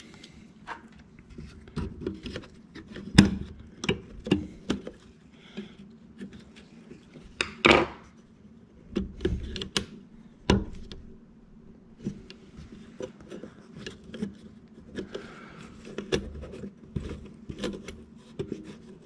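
Scattered small metal clicks, taps and scrapes of fingers and a pick working the VNT turbo's vacuum actuator rod linkage, prying at the circlip and twisting the rod end to shorten it, with a few louder knocks.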